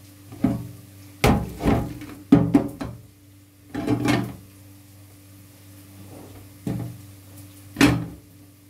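Aluminium cooking pot and lid knocking and clanking about eight times, each knock with a short ring, as the pot is tipped over the sink to drain boiled potatoes. A low steady hum runs underneath.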